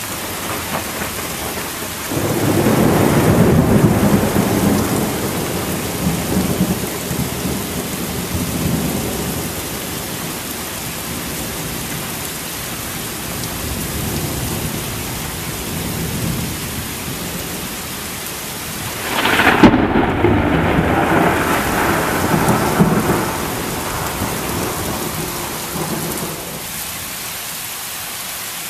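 Heavy rain falling steadily throughout, with two peals of thunder. A rolling rumble starts about two seconds in and fades over several seconds. A sharper crack comes about two-thirds of the way through and rumbles on for several seconds before dying away.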